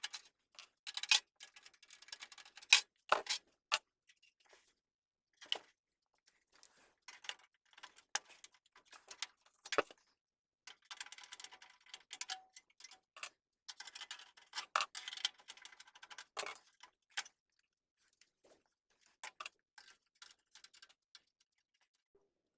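Hands handling PC parts and the computer case: scattered sharp clicks and taps of plastic and metal, with short rattling stretches, thinning out near the end.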